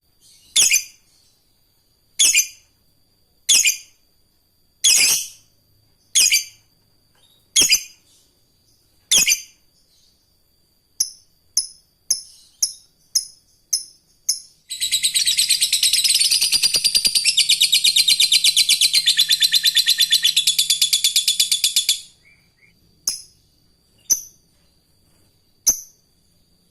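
Lovebird giving loud, sharp single calls about every second and a half, then a quicker run of shorter calls. About halfway in it breaks into roughly seven seconds of rapid, unbroken chattering, the long 'ngekek' trill of a fighter lovebird, followed by a few more single calls.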